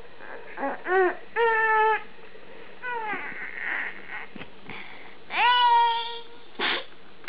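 Three-month-old baby fussing and crying with a pacifier in his mouth. There are short wails about a second in, a falling cry near the three-second mark, and a longer held wail a little past five seconds, with a brief cry after it.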